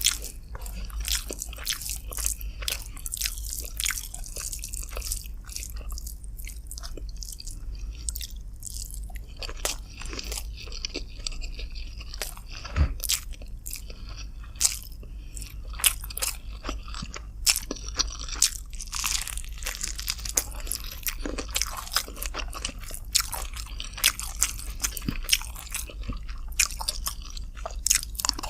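Close-miked eating sounds of a person chewing chicken and rice, with many sharp wet clicks and crunches throughout.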